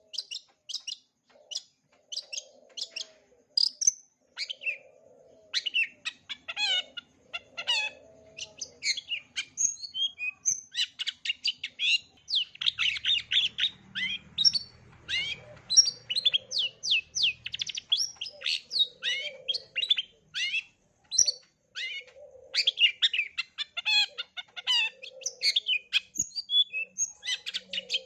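Long-tailed shrike (cendet) singing a fast, varied song of short, sharp chirps and trills, packed with notes mimicked from other birds, with occasional lower notes mixed in.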